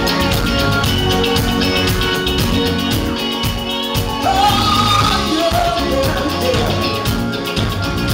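Live blues band playing: drum kit, guitar, keyboard and horn section, with a lead melody that bends and slides in pitch about halfway through.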